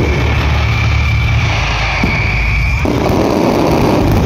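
Fireworks bursting and crackling over a heavy low rumble, with a high whistling tone that stops a little under three seconds in. A thicker crackle follows as the last shells break up.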